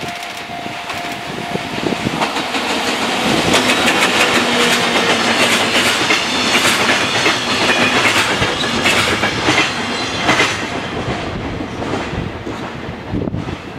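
Freight train hauled by a JR EF64 electric locomotive rolling past close by, its empty container flatcars clattering, the wheels clicking over rail joints. The noise fades as the last wagon goes by near the end.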